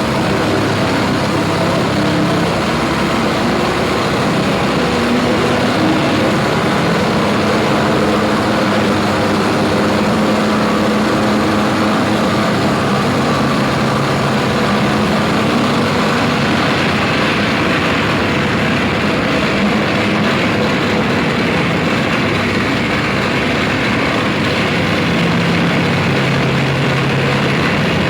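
Live harsh noise music: a loud, unbroken wall of distorted noise, with low droning tones that shift every few seconds underneath.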